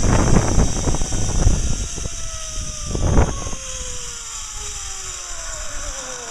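Zip-line trolley pulleys running along the steel cable, a whine whose pitch falls steadily as the rider slows toward the landing. Wind rushes over the microphone for the first second or so, and there is a short burst of noise about three seconds in.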